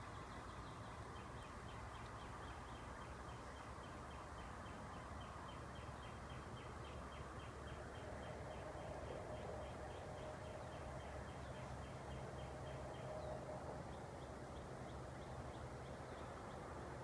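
Faint outdoor background with a rapid, even series of short high chirps that starts about a second in and stops near the end, over a low rumble.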